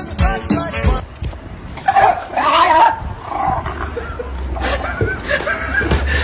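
A dog vocalising in long wavering calls that bend up and down in pitch, loudest a couple of seconds in and again near the end.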